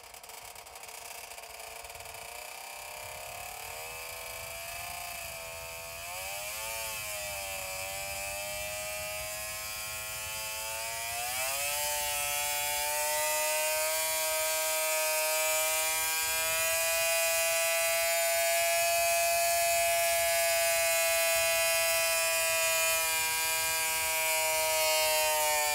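Hand-built Arctic Cat 440 air-cooled twin-cylinder two-stroke engine on a dyno with hand-built expansion-chamber pipes, revving up in steps with a couple of brief dips in pitch. It then screams at a steady high pitch, near 10,000 rpm, for roughly the last twelve seconds, getting louder.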